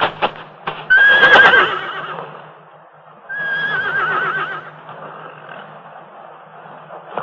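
Horse whinnying twice, each call starting high and held, then breaking into a quavering, trailing whinny.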